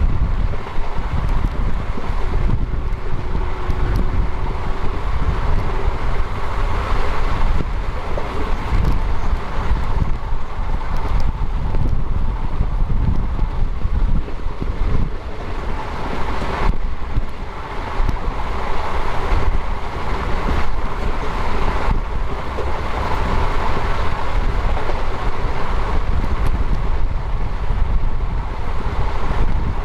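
Train running along the line, heard from an open coach window: a steady rumble of wheels on rail, with wind buffeting the microphone.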